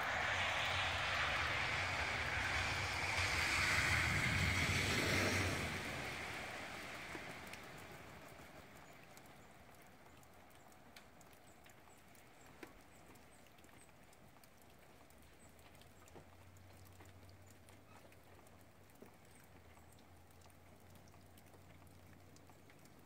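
A rushing noise with a low rumble, loudest in the first five seconds, fading away over the next few seconds to a faint background with a few scattered small ticks.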